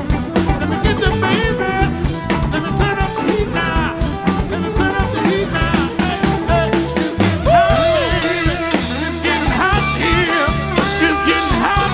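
Live band playing an upbeat song with drum kit and guitar, a lead melody line bending in pitch over the beat.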